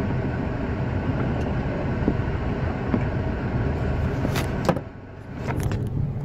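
Steady engine and road noise heard from inside a moving vehicle's cab. From about four and a half seconds in come a few sharp knocks and clicks from the phone being handled, and the noise dips briefly.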